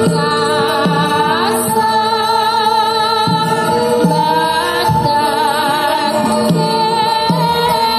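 Javanese gamelan dance accompaniment: held metallophone tones with a singer's wavering voice over them and low drum strokes recurring about once a second.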